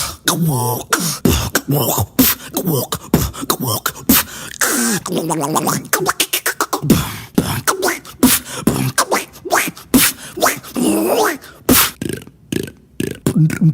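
A beatboxer making vocal sound effects with the mouth: a fast run of sharp clicks and pops mixed with pitched, gliding vocal sounds that sweep up and down.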